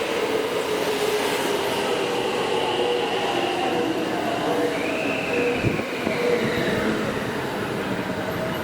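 Express train running at a station: a steady rumble of wheels on rail, with several whining tones that slowly fall in pitch, and a higher squeal that rises and then falls about five seconds in.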